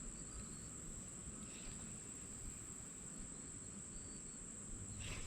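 Steady high-pitched insect trill, typical of crickets, over faint outdoor background noise.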